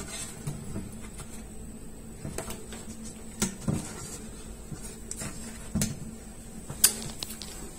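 Scattered light knocks and clicks as a hand works at a soft-close toilet seat's hinge fixings on the bowl, with the sharpest click near the end, over a faint steady hum.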